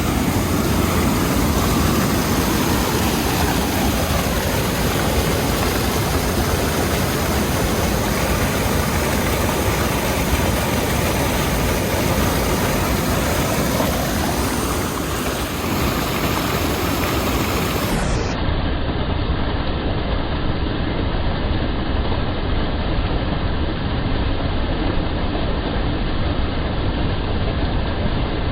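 Small waterfall's water rushing steadily, a loud, even noise.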